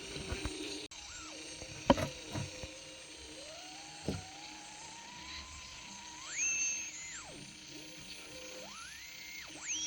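Simple direct-amplification radio tuned between stations: a steady hiss with whistling tones that glide up and down in pitch and pause, and a few sharp clicks about two seconds in.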